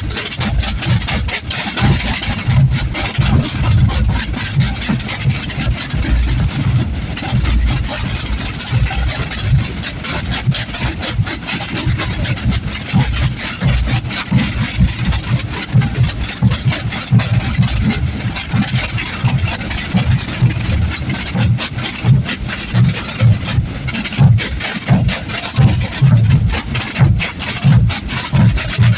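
Massed procession drums and bass drums (tambores and bombos) played together: a loud, dense, continuous drumming rhythm with deep booms underneath.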